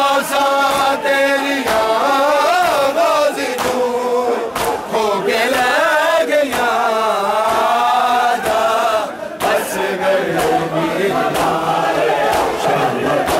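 A group of men chanting a Punjabi noha, a Shia Muharram mourning lament, together in loud, wavering unison with long, gliding sung phrases.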